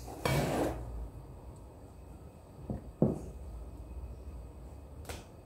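Handling sounds of thick cake batter being scooped out of a ceramic mixing bowl with a silicone spatula: a short scrape near the start, two soft knocks about three seconds in, and a light click near the end.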